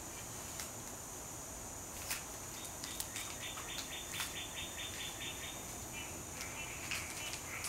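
Outdoor insect chorus: a steady high-pitched trill of crickets, with a quick run of about a dozen short chirps, roughly five a second, in the middle, more chirping near the end, and a few faint clicks.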